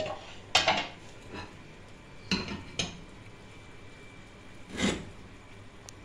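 Dishes knocking and scraping on a gas stove's metal grates as they are moved: four short clatters, the loudest about half a second in, the last a longer scrape near five seconds.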